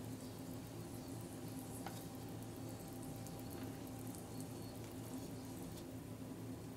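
Faint sizzle of pancakes and bacon cooking in a non-stick frying pan over a steady low hum, with a few light clicks as wooden chopsticks touch the pan and pancake.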